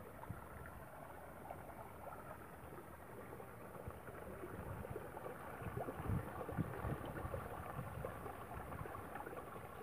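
Steady wash of running water, with a few soft knocks and squelches about six to seven seconds in as the wet cast net is handled on the mud.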